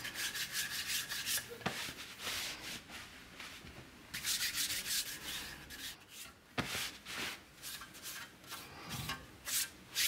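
Hand wiping an inked copper etching plate: the bare hand rubs over the metal in repeated strokes, coming in bursts with short pauses. This is the wipe that clears surface ink and leaves ink in the etched lines before printing.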